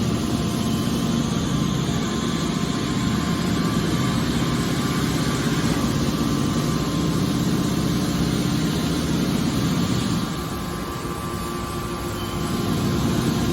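Hydraulic press baler for aluminium cans running, a steady machine hum from its power unit. The sound eases slightly about ten seconds in and builds again near the end.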